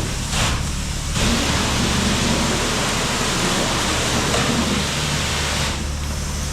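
High-pressure car wash wand spraying water onto a john boat, a steady hiss that comes on in short spurts and then runs unbroken from about a second in until it stops near the end, over a low steady hum.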